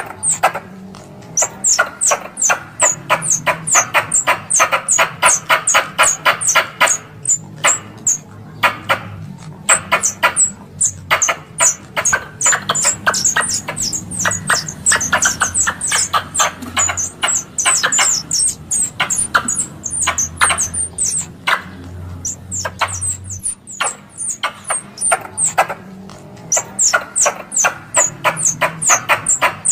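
Squirrel lure call: a rapid chatter of sharp, high chips, about three to four a second, with a few brief pauses. It is played to draw squirrels in for hunting.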